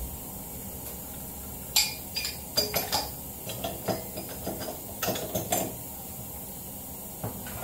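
Metallic clinks and clanks of a steel pipe wrench being set and turned on a Tao Tao 125cc ATV's rear axle shaft at the brake-disc hub. They come in short clusters, the sharpest about two, three and five seconds in.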